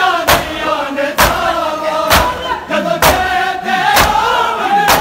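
Crowd of mourners doing matam, beating their chests in unison with loud open-hand slaps about once a second, over a chanted noha, a Shia lament.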